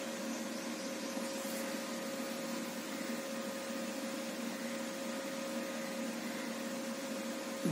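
Steady background hiss with a faint constant hum, unchanging throughout: room tone with no distinct event.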